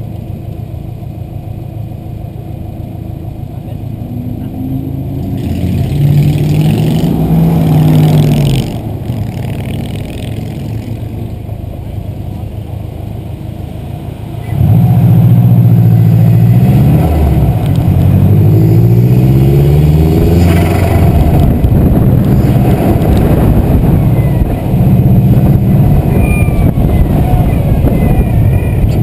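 Subaru WRX's turbocharged flat-four engine under hard acceleration, its revs climbing and dropping back at each gear change. The pull grows markedly louder about halfway through.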